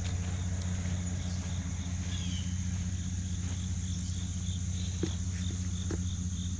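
Truck engine idling with a steady low hum, under insects or crickets with a steady high whine and a faint regular chirp about three times a second.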